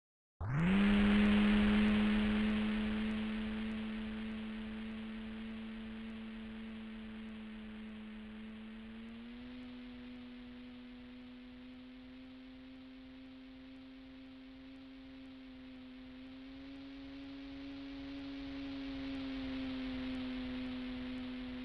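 Electric RC plane motor and propeller whine: it starts suddenly with a quick rising spin-up, then holds a steady hum, rising slightly in pitch twice, fading and then growing louder again before cutting off abruptly.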